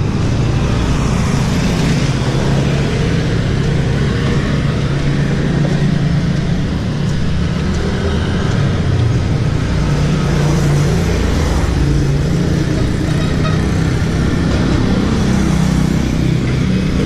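Motor vehicle engines running close by on a road: a steady, loud, low rumble of traffic.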